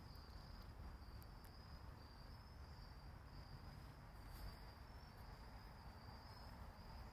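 Faint cricket chirping: a thin high trill repeating in short pulses, over a low rumble.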